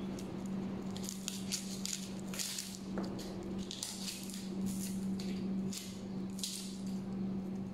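Dry outer skin of a red onion being peeled and scraped off with a small kitchen knife: a series of short, crackly scrapes, over a steady low hum.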